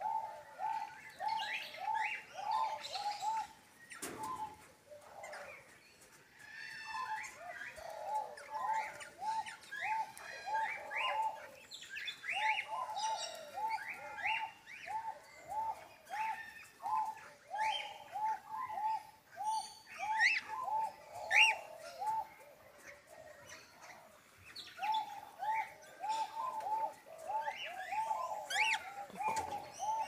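Aviary birds calling: long runs of short, repeated low notes, about three to four a second, broken by a couple of short pauses, with higher chirps and whistles scattered over them.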